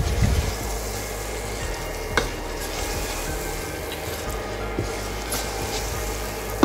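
Thick masala and sprouted moong and yellow peas sizzling in a hot pot while being stirred with a wooden spatula, the mixture scraping against the pot. A single light tap about two seconds in.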